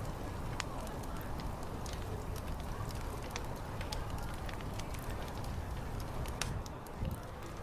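Fire crackling, with irregular sharp pops scattered over a steady low rumble, and faint low chatter in the background.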